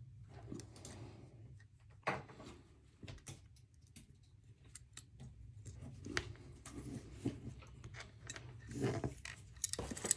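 Faint, scattered metal clicks and taps of a Zero Tolerance 0562 folding knife's handle parts being worked in the fingers during reassembly, with a sharper click about two seconds in.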